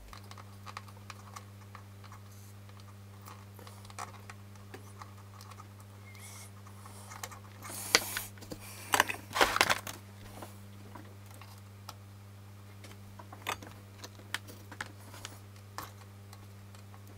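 Scattered small clicks and taps of hands and a soldering iron working on a circuit board, over a low steady hum. A few louder clattering, rustling bursts come about eight and nine to ten seconds in.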